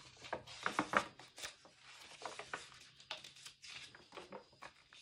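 Pages of a hardcover picture book being turned by hand: irregular soft paper rustles and flaps, loudest about a second in.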